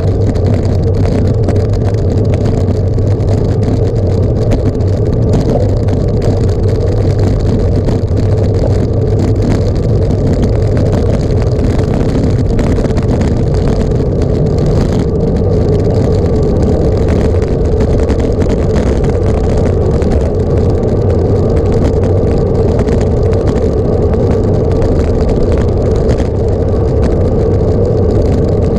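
A vehicle's engine drones steadily at a constant pitch, without pauses or changes in speed.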